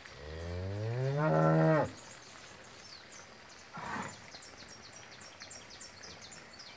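A cow moos once: a loud call that rises in pitch, then holds and cuts off after about two seconds. A short breathy huff follows about four seconds in, over faint high chirping.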